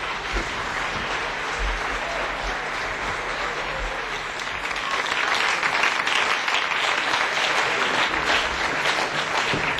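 Audience applauding at the end of a sung performance, the clapping growing louder about halfway through.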